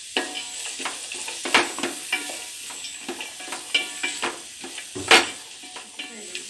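Onion, beans and carrot sizzling in oil in a pan while being stirred, the utensil scraping the pan in irregular strokes, with a louder scrape about five seconds in.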